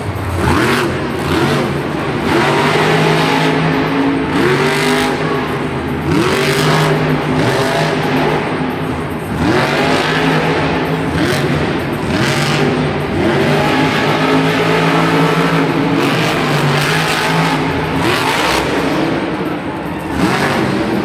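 Monster Mutt Dalmatian monster truck's supercharged V8 engine revving hard in repeated bursts every second or two, its pitch climbing with each blip of the throttle, over a steady loud engine drone.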